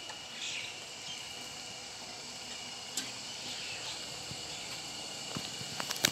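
Steady hiss of monsoon rain falling, with a thin high steady tone running through it. A few sharp taps come near the end.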